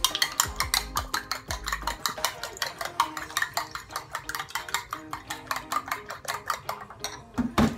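Fork beating raw eggs in a bowl: rapid clicking of the fork against the bowl, several strokes a second, with a brief pause near the end.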